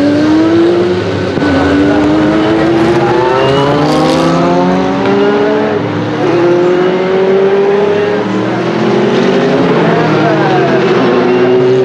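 Turbocharged Porsche 962 flat-six racing engine of a March 85G Group C prototype accelerating hard through the gears, its pitch climbing and dropping back at each upshift, several times. Later, a second Group C car's engine overlaps with it.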